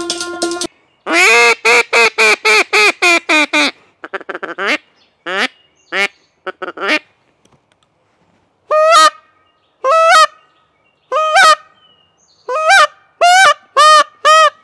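Goose honking: a fast run of about nine honks, a few fainter shorter calls, then a string of spaced honks, each breaking upward in pitch. Music cuts off just under a second in.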